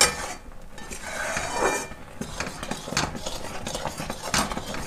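Metal spoon stirring thick jaggery syrup in a steel kadhai, scraping and clinking against the pan a few times.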